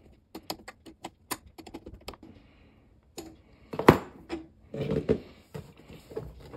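Quick light metallic clicks and rattles as the nut of a braided stainless water supply line is spun off by hand from the fitting on a refrigerator's water inlet valve, with one louder clack about four seconds in as the line is handled.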